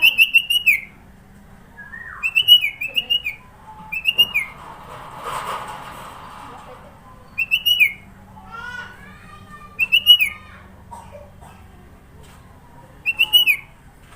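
Sooty-headed bulbul (kutilang) singing: short loud bursts of four or five quick, sharp, down-slurred whistled notes, repeated every two to three seconds, with quieter varied chirps in between. A brief rushing noise comes about five seconds in.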